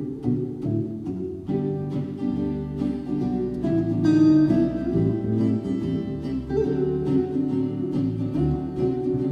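Live jazz played on acoustic Selmer-Maccaferri-style guitars with an electric bass: plucked guitar lines and chords over a bass line.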